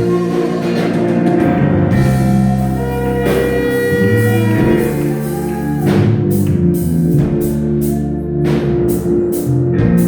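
Live gospel band playing an instrumental stretch: held bass and keyboard chords under a drum kit, with cymbal strikes coming thick and fast in the second half.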